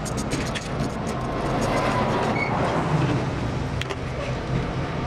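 A motor vehicle engine running steadily as a low rumble, swelling slightly in the middle, with a few sharp light clicks.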